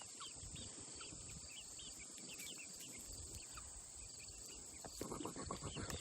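Baby chickens peeping faintly in many short, high chirps over a steady, high insect drone, with a brief rustle about five seconds in.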